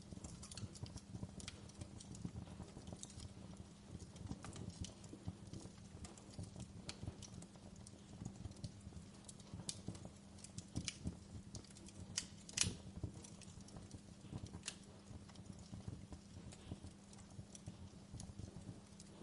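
Wood fire crackling: irregular small pops and snaps, with one sharper pop about two-thirds of the way through, over a low steady hum.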